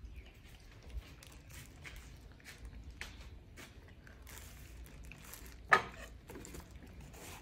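A monkey chewing and biting watermelon: a string of small, quiet clicks, with one much louder sharp knock about five and a half seconds in.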